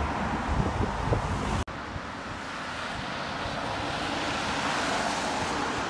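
Road traffic passing with wind on the microphone; about one and a half seconds in the sound cuts off abruptly and gives way to a steady rush of wind noise and passing traffic.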